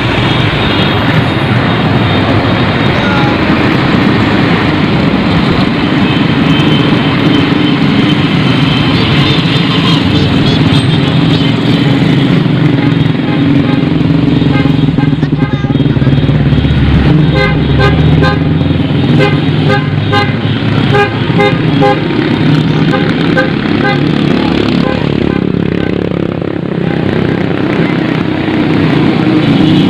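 A line of cars, motorcycles and a bus driving past with engines running and a steady traffic rumble. Through the middle stretch, vehicle horns beep repeatedly in short, even toots, about two a second.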